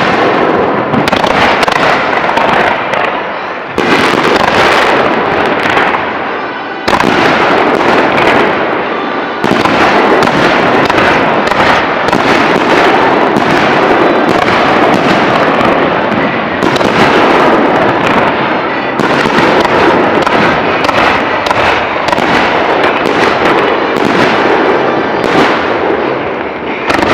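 Aerial fireworks bursting in a dense, continuous barrage, many shells and crackling reports overlapping, with fresh surges of bursts a few times.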